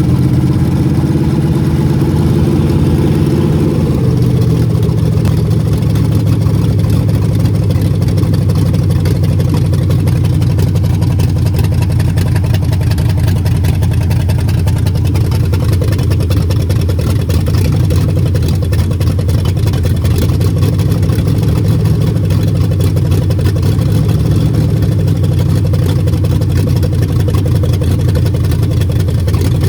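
Mopar 400 big-block V8 running steadily, its note dropping a little about four seconds in. The engine has bad bearings.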